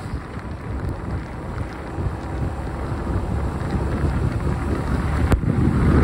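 Road and wind noise from a vehicle travelling on a wet road: a steady low rumble with wind buffeting the microphone, growing louder toward the end. There is one sharp click about five seconds in.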